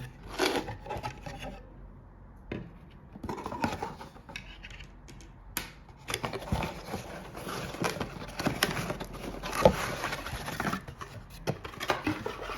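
Parts and packaging being handled during an unboxing: scraping, rubbing and scattered clicks. The handling gets busier about halfway through, with a sharp knock near the end.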